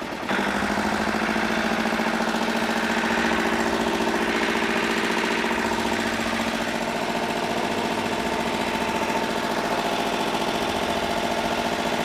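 Boat engine running at a steady, even pitch, heard from on board, over the wash of churned water. It starts abruptly a moment in.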